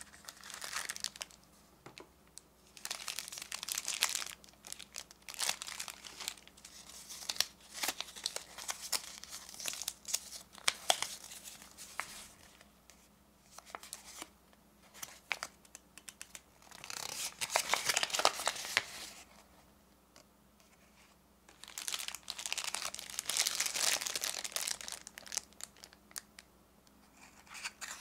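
Hands crinkling a thin plastic wrapper and unfolding a folded paper leaflet from a gacha capsule toy. The crackle comes in several bursts of a few seconds each, with sharp little clicks and short pauses between them.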